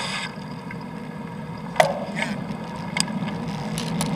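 Steady rumble of wind and wet-road noise from a bicycle ride in the rain, picked up by an action camera. A sharp knock comes a little under two seconds in and a lighter click about three seconds in.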